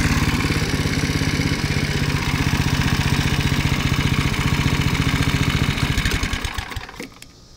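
Small single-cylinder lawn mower engine, run with its shroud off and flywheel exposed, running steadily; about six seconds in its firing slows and it stops, a second later.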